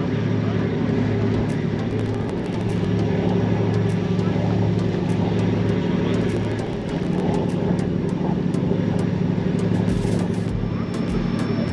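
Car ferry's diesel engine droning steadily while under way.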